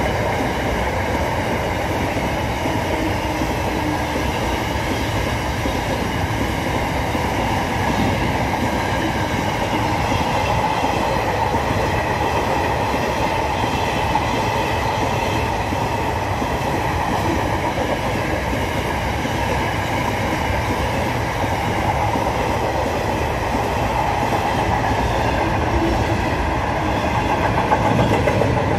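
A train running along the tracks beside the platform: a steady rumble of wheels on rails with some clickety-clack and a steady whine over it, going on without a break.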